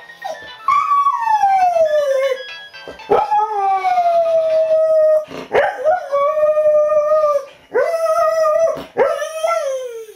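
Brittany spaniel howling along to a ringing mobile phone: five long howls in a row, each starting high and sliding down in pitch.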